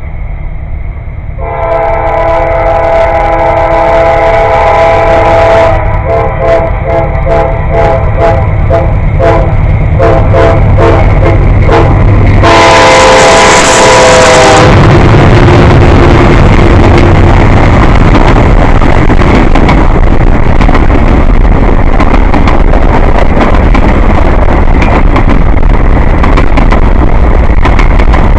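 Nathan K5LA five-chime air horn on a CSX GE C40-8 locomotive sounding long crossing blasts, very loud, the last ending about fifteen seconds in as the locomotives pass close by. After that comes the loud roar and rumble of the locomotives and freight cars rolling past.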